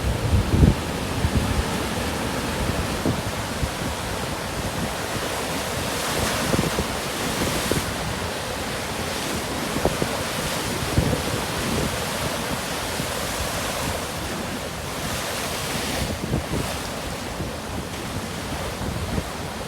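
Rough surf from a typhoon swell breaking and washing in, under strong onshore wind that buffets the microphone with low rumbles. The noise swells louder twice, about a third of the way in and again later on.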